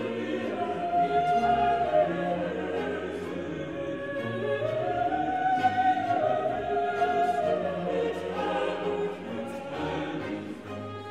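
Background classical choral music: voices singing long, slowly moving held notes.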